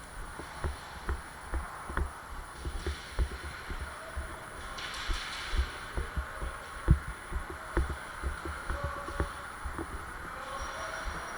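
Irregular dull thumps, one every half second to a second, with scattered sharp clicks and a few stretches of hiss: the footsteps and gear knocks of a player moving, picked up by a body-worn camera.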